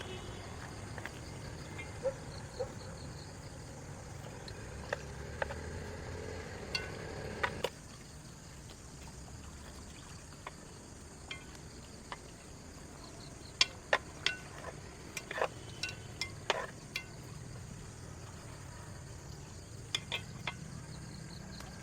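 Scattered light clicks and taps, a few sharper ones bunched together in the second half, over faint steady background noise.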